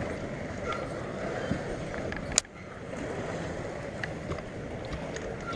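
Steady wind and lake-water noise around an open bass boat, with one sharp click about two and a half seconds in.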